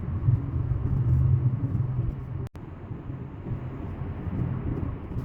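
A low, steady rumble with a very short dropout about halfway through.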